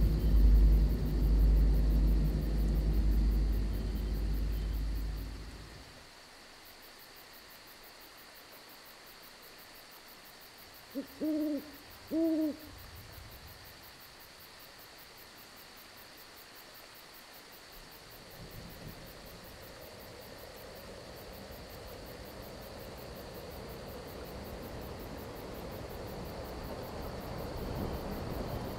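A low rolling rumble of thunder fades away over the first five seconds or so. About eleven seconds in, an owl hoots three times in quick succession, short low hoots, over a faint steady high trill of crickets. From about eighteen seconds a soft hiss slowly builds.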